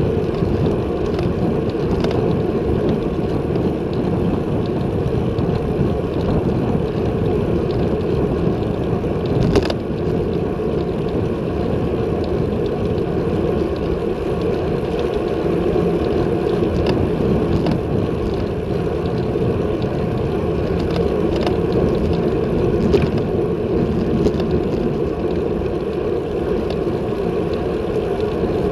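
Steady wind rushing over a handlebar-mounted Garmin VIRB action camera's microphone, mixed with tyre and road noise from a bicycle rolling at about 30 km/h. There is one sharp tick about ten seconds in.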